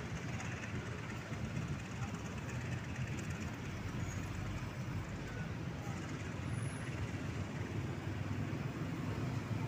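Diesel locomotive engine running with a steady low rumble as the locomotive moves slowly along the track.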